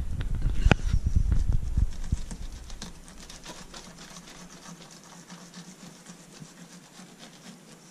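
Serrated knife sawing through a flounder's skin and flesh down the middle of its back, a quick run of small scratchy ticks. It is louder with a few heavier knocks in the first two seconds, then softer.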